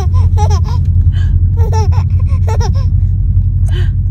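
Infant giggling and squealing in short gasping bursts, over the steady low rumble of a car interior.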